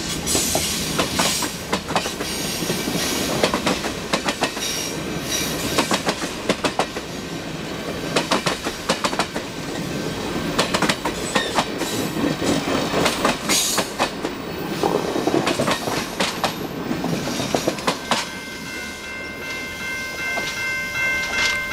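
Passenger train cars rolling past, their wheels clacking rapidly over rail joints above a steady rumble. Near the end a multi-note train horn sounds steadily.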